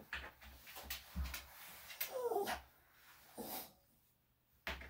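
A senior Maltese dog gives a short whimper that falls in pitch, about two seconds in, while being held for grooming, among soft handling noises. A sharp knock comes near the end.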